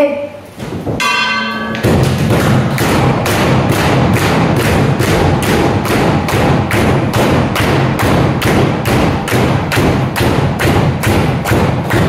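A bell rings briefly about a second in, then loud sharp knocks repeat in a fast, even rhythm, about three a second.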